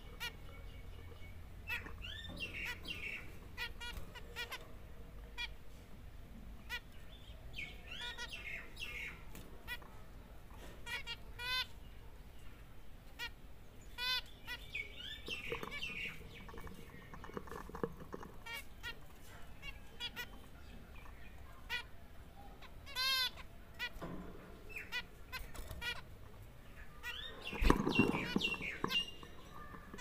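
Caged zebra finches calling: repeated short, nasal beeping calls from several birds, with a louder burst of wing flapping and scuffling near the end.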